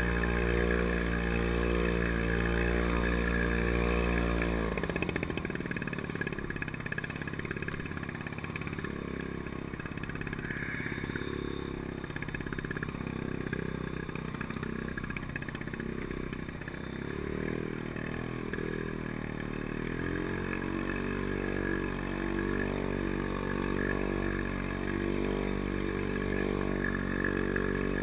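The small Villiers 9E two-stroke single-cylinder engine of a Pengor Penguin amphibious ATV running while the machine moves through the water. Its note holds steady at first, drops about five seconds in and wavers unevenly for some fifteen seconds, then settles steadier near the end.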